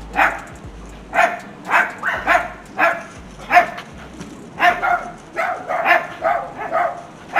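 A dog barking repeatedly, about a dozen short barks in quick, uneven succession.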